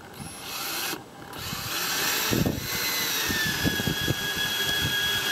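Cordless drill driving a stainless steel screw through a metal hanger strap into the GRP centreboard box. A short spin, a brief stop, then a long steady motor whine that drops slightly in pitch about three seconds in and holds.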